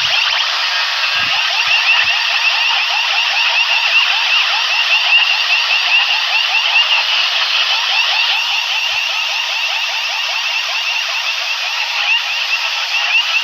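An electronic siren-like alarm effect blasted through a DJ sound system: a rapid, unbroken string of short rising chirps, loud and high-pitched.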